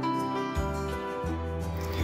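Instrumental background music with sustained notes.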